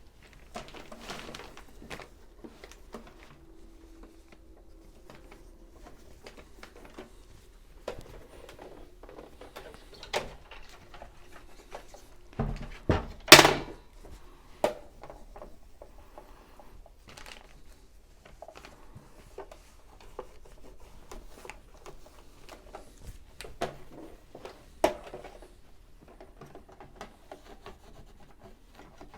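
A rag rubbing and wiping over a plastic sewing machine case, with scattered clicks and knocks as the case is handled and shifted. One brief, louder rushing burst comes about 13 seconds in.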